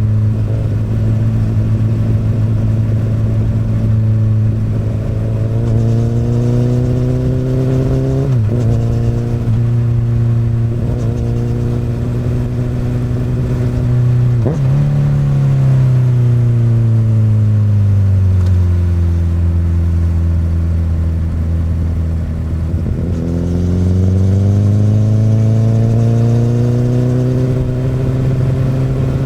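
Honda CBR1000RR inline-four running through an Akrapovic exhaust on the move. The engine note rises, is cut by a quick gear change about 8 seconds in and again about 14 seconds in, and then falls steadily as the bike slows. It climbs again from about 23 seconds as the bike accelerates.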